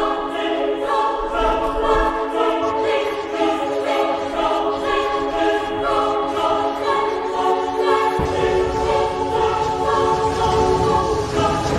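Background choral music: a choir singing sustained chords. About eight seconds in, a low rushing rumble comes in underneath it.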